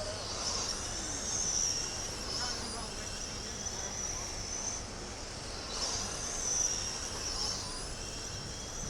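Electric motors of small rubber-tire racing trucks whining as they run laps, a high buzz that rises and falls in pitch and swells louder twice as the trucks pass.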